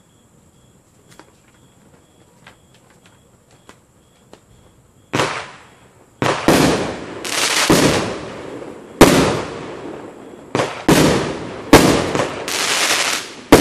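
A 37-shot consumer firework barrage cake firing. After about five seconds of quiet, the shots begin and come in quick succession: about a dozen sharp bangs in the last eight seconds, each trailing off over a second or so before the next.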